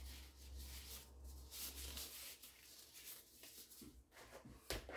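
Faint rustling and crinkling of thin disposable plastic gloves being pulled onto the hands, then soft rubbing as the gloved hands go into dough in a plastic bowl near the end. A low hum sits underneath for the first couple of seconds.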